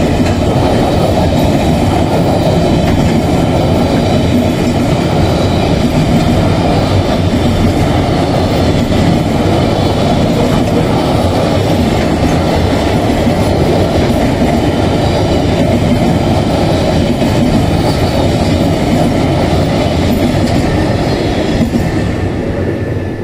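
Freight train's empty flat wagons rolling past: a loud, steady rumble of steel wheels on the rails, falling away near the end as the last wagon goes by.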